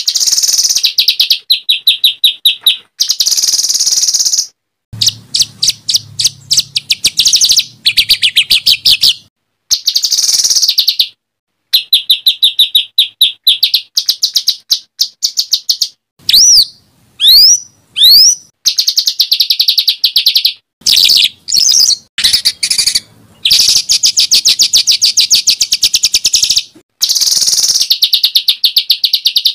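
Songbird tutor recording of loud, rough 'tembakan' song: fast rattling runs of rapidly repeated notes and trills, cut together with abrupt stops and short silent gaps. Around sixteen to eighteen seconds in, a few sharp swooping whistles break up the runs.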